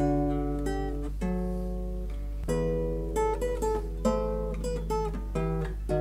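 Background music: an acoustic guitar playing a run of picked notes and chords, over a steady low hum.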